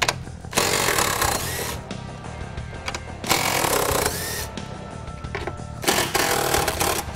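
Half-inch impact gun spinning the strut-top nuts off a Mustang's front strut tower in three short bursts, one about every two to three seconds, over background music.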